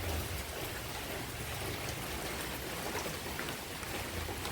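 Rain falling steadily: an even hiss with scattered drop ticks.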